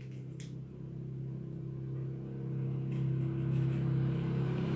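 A steady low motor-vehicle engine hum that grows gradually louder, with a faint click about half a second in.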